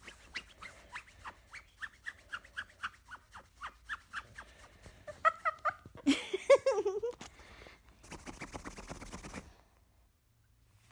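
Fingernails scratching along bedsheets in quick repeated strokes, with an umbrella cockatoo laughing in short chirps in time with them and a louder, wavering laugh about six seconds in. A scratchy rasp follows, stopping about a second before the end.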